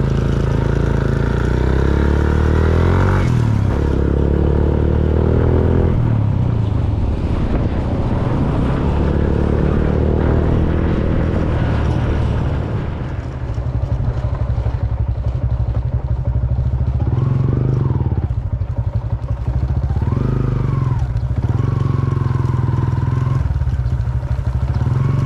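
Small motorcycle engine running under way, its pitch rising during the first few seconds as it speeds up, then holding steady.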